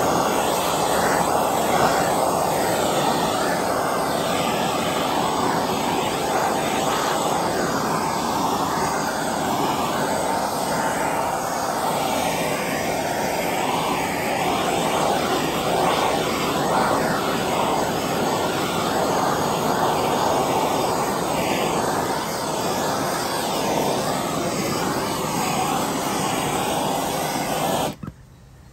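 Heat gun blowing a steady rush of hot air over wet epoxy to draw the bubbles out. It cuts off suddenly about a second before the end.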